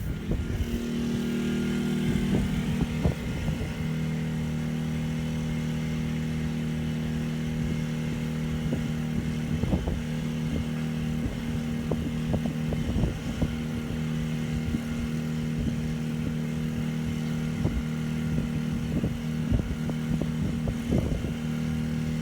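Westinghouse iGen2500 inverter generator running steadily under a load of about 1,600 watts, a constant engine hum with scattered low thumps over it.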